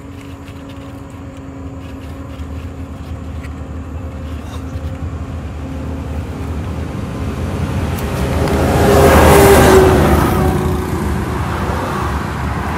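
Motor vehicle passing on the road, its engine and tyre noise growing steadily louder to a peak about nine seconds in, then fading.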